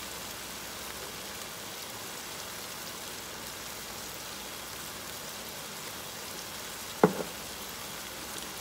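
Ground beef and onion sizzling steadily as they fry in a wide pan, with one sharp click about seven seconds in.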